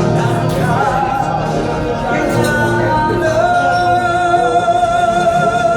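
A singer performing over backing music; a little past halfway the voice settles into a long held note with vibrato.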